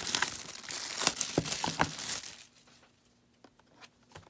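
Cellophane shrink wrap crinkling and tearing as it is pulled off a trading-card box, stopping about halfway through.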